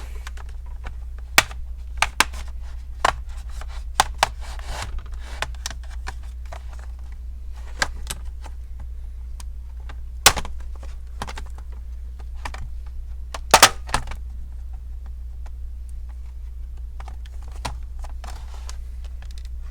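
Plastic clips of a laptop's keyboard and case clicking and snapping as they are pried apart: scattered sharp clicks, the loudest about ten and thirteen and a half seconds in, over a steady low hum.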